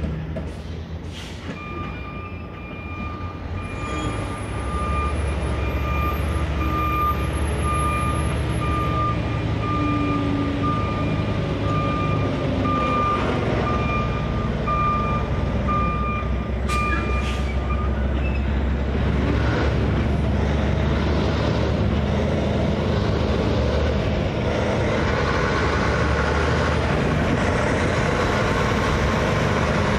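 Diesel gravel dump truck with a wagon dump trailer reversing, its backup alarm beeping at a steady pace over the engine. About two-thirds of the way in the beeping stops. Near the end the truck pulls forward and the engine gets louder.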